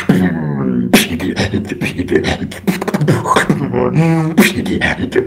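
Solo beatboxing: a fast run of mouth-made percussive clicks and snare-like hits mixed with hummed pitched notes, with a bending pitched tone in the first second and a held buzzing note about four seconds in.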